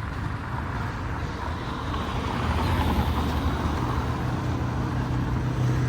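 Road traffic: a motor vehicle's engine running with a steady low hum, and road noise that swells about two seconds in as a vehicle passes close.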